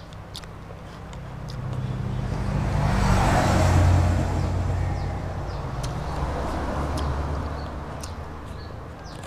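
A motor vehicle passing by. Its engine hum and road noise swell over a couple of seconds to a peak near the middle, then fade away toward the end.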